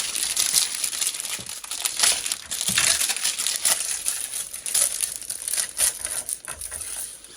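Packaging crinkling and crackling as it is handled and pulled open, a dense run of small crackles.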